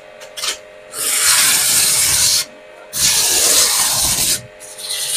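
A 2500-watt electric pressure washer (car washer) spraying in bursts as the trigger is pulled and released: a loud hiss of the water jet about a second in, again near the middle, and starting again near the end, the jet cutting into a foam sheet.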